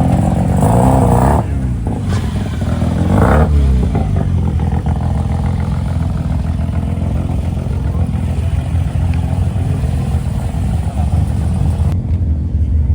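A car engine running, blipped up and back down twice in the first few seconds, then running steadily.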